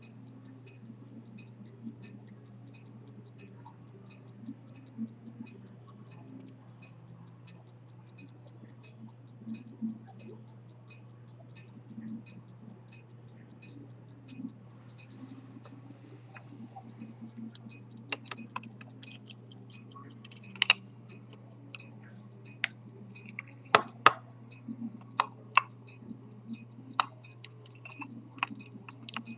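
Century-old chronograph pocket watch ticking steadily and quickly. From a little past halfway, louder irregular clicks and knocks come in as the watch is handled.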